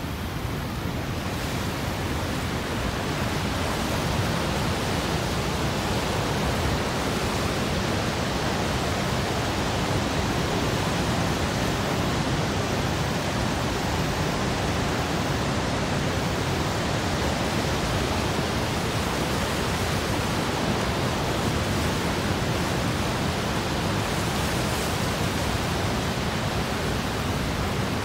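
Steady rushing noise of Niagara's Horseshoe Falls and the rapids just above it, a continuous even hiss of falling and churning water that grows a little louder over the first few seconds.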